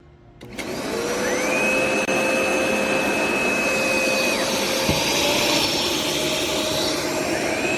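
Hoover SmartWash carpet cleaner's suction motor starting up about half a second in, its whine rising as it spins up, then running steadily and loud. The high whine drops away about four seconds in and rises back in near the end.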